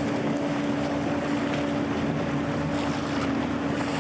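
Boat engine running at a steady hum, with wind rushing over the microphone.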